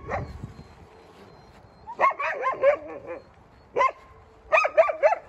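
Wolves giving short, high yips and barks in quick bursts: a cluster about two seconds in, a single call just before four seconds, and another cluster near the end.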